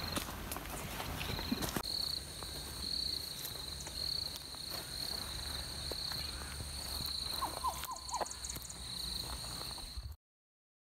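Insects chirping outdoors: a high, steady trill that swells in pulses about once a second, over a low steady rumble. A few short chirps come in near eight seconds, and the sound cuts off suddenly near the end.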